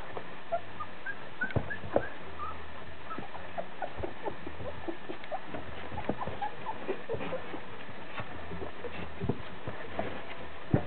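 Young puppies squeaking and whimpering in many short, high yelps, with light taps and scratches from paws scrabbling on the paper-lined box.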